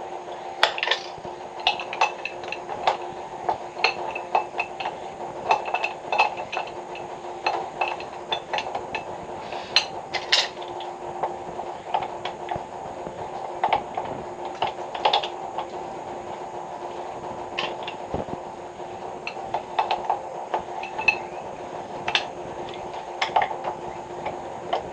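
Irregular metallic clinks and taps, sometimes a few in quick succession, each ringing briefly, over a steady hum.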